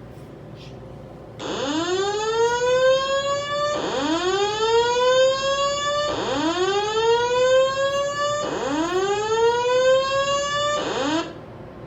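Building fire alarm sounding a whoop tone. It starts about a second and a half in: each sweep rises in pitch over about two and a half seconds, then drops back low and rises again. There are four sweeps, and a fifth cuts off just after it begins.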